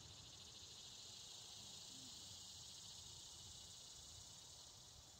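Faint, steady, high-pitched insect chorus.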